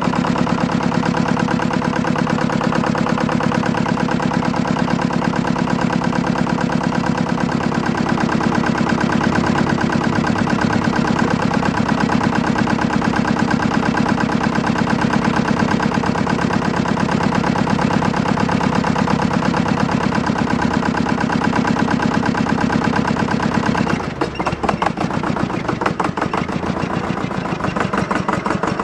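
Valpadana Alpine compact tractor's engine idling steadily with a fast, even chugging. About four-fifths of the way through, the sound drops and turns rougher as the tractor moves off.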